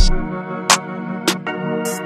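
Background music: held keyboard chords over a steady beat, with a deep kick drum at the start and sharper drum hits about every 0.6 s.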